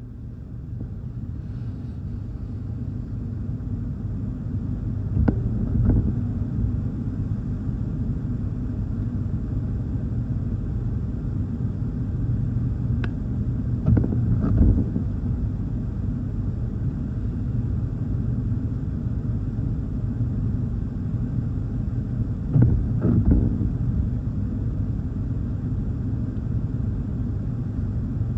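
Gusty wind buffeting the microphone in a steady low rumble, with short, stronger gusts in pairs about five, fourteen and twenty-three seconds in.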